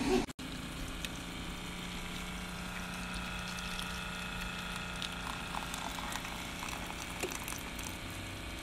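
Single-serve hot-water brewer pumping hot water into a paper cup: a steady pump hum under the trickle of water filling the cup.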